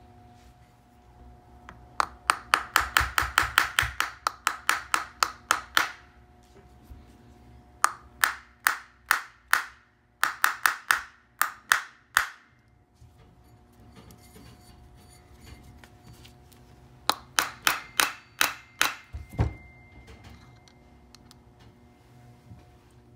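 Three quick runs of light metallic hammer taps, about five a second, on a bolt threaded into the output shaft of a Vittorazi Atom80 reduction gearbox, each strike ringing briefly.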